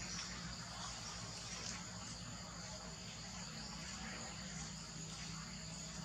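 Steady, high-pitched chorus of insects buzzing without a break, with a faint low hum beneath it.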